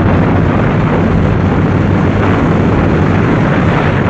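Rocket engines running at full power on the launch pad just before liftoff: a loud, steady rush of noise, heaviest in the low range, with no change in pitch or level.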